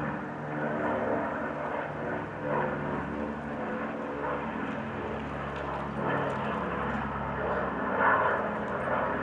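A Boeing B-29 Superfortress's four Wright R-3350 radial piston engines drone steadily as the bomber flies past after takeoff.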